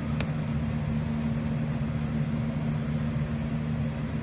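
A steady low machine hum, with one short click about a quarter second in.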